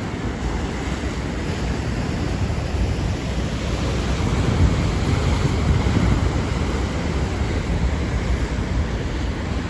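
Strong Atlantic Ocean surf breaking and washing continuously, swelling a little in the middle, with wind rumbling on the microphone.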